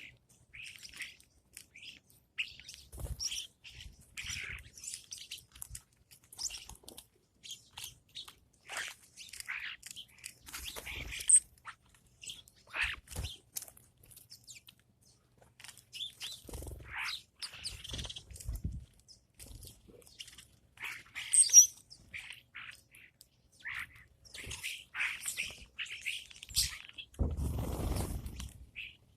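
Small birds chirping and tweeting in short, irregular high calls, with a few soft thuds and a rustling noise lasting about a second near the end.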